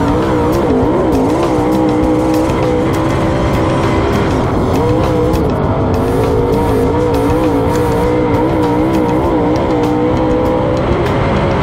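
Dirt Super Late Model race car's V8 engine at racing speed on track, its note rising and falling as the throttle comes on and off.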